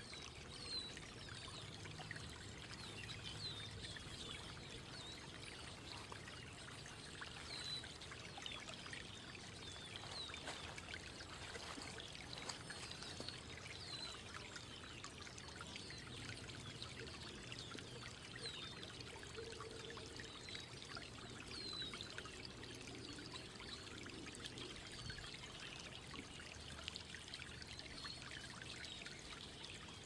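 Faint, steady ambient trickling of water, with many brief high chirps scattered through it.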